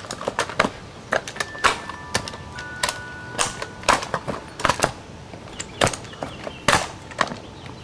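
Kick scooter clattering over stone paving slabs: a run of sharp, irregular knocks and clacks as the small wheels and deck hit the slab edges.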